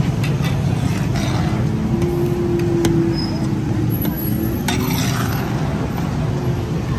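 Metal spatula scraping and knocking against a large flat steel tawa as chopped onion and daal mixture is worked, a handful of sharp clicks over a steady low rumble of street noise.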